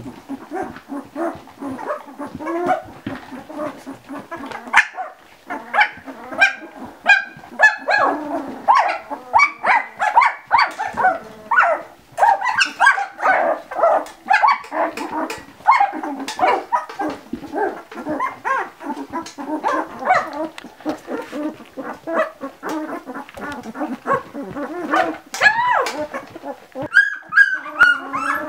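Ten-day-old Labradoodle puppies squealing and whining: many short, rising and falling cries that overlap with hardly a pause.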